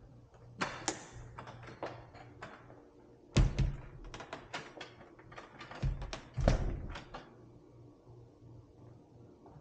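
A series of knocks and clicks, with three heavier thuds about three and a half, six and six and a half seconds in, over a faint steady hum.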